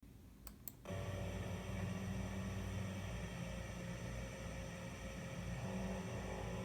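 Two faint clicks, then a steady electrical and mechanical hum of running machinery that sets in abruptly about a second in.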